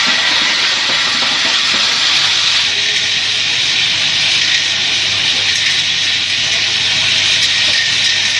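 Steady, loud hiss of factory machinery around a running automatic transformer soldering machine, even throughout with no distinct strokes standing out.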